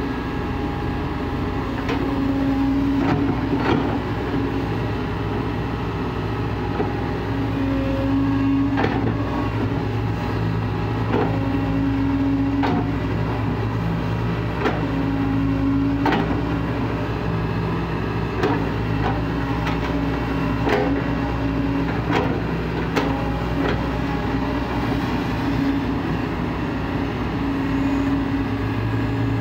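Kobelco SK140 excavator's diesel engine running steadily as it digs and loads soil. A pitched tone swells in and out every few seconds, with scattered sharp knocks throughout.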